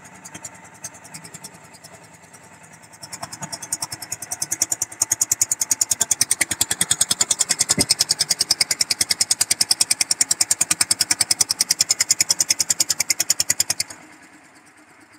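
Single-cylinder stationary diesel engine on a concrete mixer running with a steady, even pounding of about nine or ten beats a second. The pounding grows louder over the first few seconds and stops suddenly near the end.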